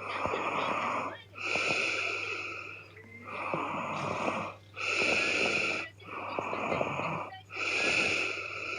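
A woman snoring heavily: harsh, rasping breaths in and out in a steady rhythm, about three full breaths, each breath lasting a little over a second.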